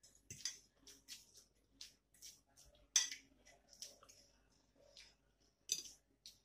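Eating sounds: noodles being slurped, wet mouth sounds, and forks scraping and clinking on ceramic plates, in short irregular bursts, the sharpest clink about three seconds in.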